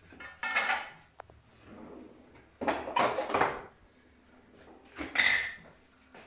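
Kitchen cutlery drawer pulled open with a rattle of metal utensils, then pushed shut about two seconds later. Just before, a glass pot lid is set down on the worktop with a short clatter.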